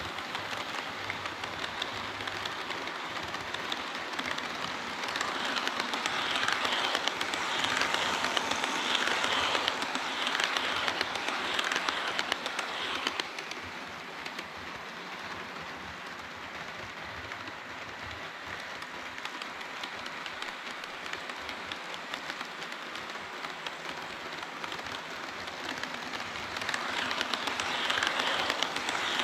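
HO-scale model train running on the layout track: a steady rattle of small metal wheels on the rails. It grows louder for several seconds a few seconds in, and again near the end.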